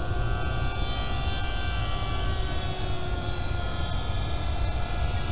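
Several RC model airplanes flying overhead, their motors and propellers whining together at different pitches that drift slowly up and down. Under them runs a steady low rumble of wind on the microphone.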